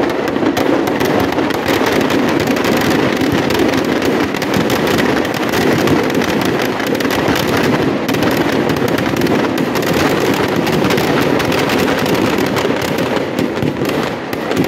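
Firecrackers packed inside a burning Ravana effigy going off together in a dense, unbroken rattle of bangs and crackles.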